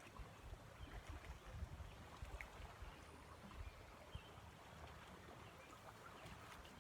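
Near silence: faint outdoor ambience with irregular soft low rumbles and a few faint ticks.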